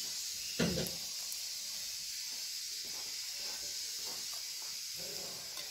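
Hot sauce poured from a small aluminium saucepan onto a crumbled rfissa base, a steady hiss. There is a short knock about half a second in.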